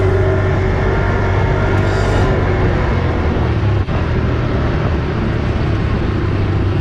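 ATV engine running steadily while riding, a continuous loud drone that drops out briefly once about four seconds in.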